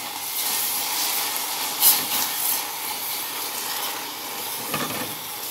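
Hot melted brown-sugar syrup hissing and sizzling in a saucepan as a little water goes in and the mixture is stirred with a silicone spatula, with a sharper burst of hiss about two seconds in.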